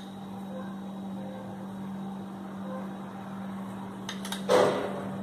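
Steady low electrical hum under faint room noise, with a couple of faint clicks about four seconds in, then a brief, louder burst of rustling noise near the end.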